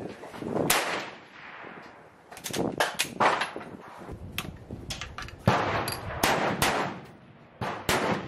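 A Krag–Jørgensen bolt-action rifle fires about a second in, its report dying away over the next second. Then comes a run of sharp metallic clicks and clacks as the bolt and side-loading magazine are worked, with further loud sharp bangs about halfway through and near the end.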